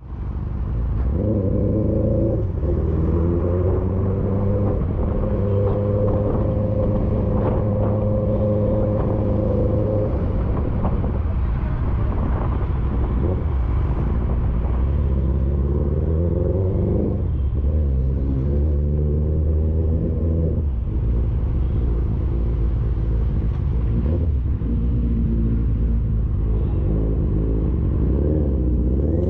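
Motorcycle engine under way, its pitch climbing and then stepping down several times as it shifts through the gears.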